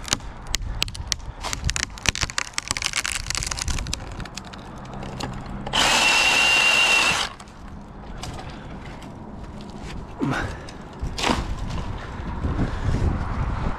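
Milwaukee Hatchet battery pruning saw running in one loud burst of about a second and a half with a steady high whine, cutting into a branch. Before it comes a run of sharp clicks and crackles, and a couple of shorter bursts follow near the end.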